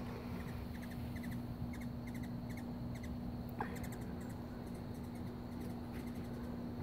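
Backyard garden ambience: faint high chirps in quick groups of three or four over a steady low hum, with a single short falling call a little past halfway.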